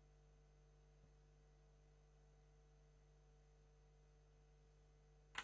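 Near silence with a faint steady hum, then near the end a single sharp click of the cue tip striking the carom cue ball: a miscue, the tip slipping off the ball.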